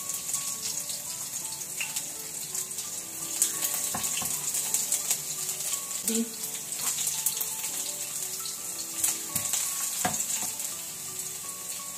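Chopped garlic sizzling steadily in hot oil in a kadai, with short clicks of the spatula stirring now and then.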